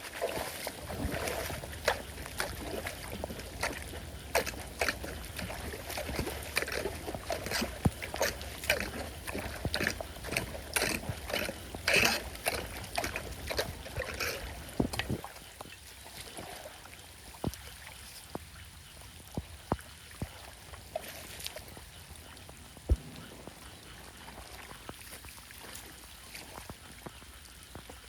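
Irregular splashing and knocking in shallow floodwater as debris is worked loose from a clogged drain, busy for about the first fifteen seconds and then only an occasional splash.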